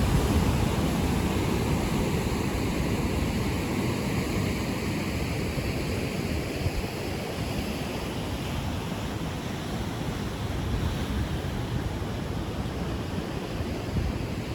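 Ocean surf breaking and washing steadily below a pier, a continuous rushing noise that is a little louder in the first couple of seconds and then eases slightly.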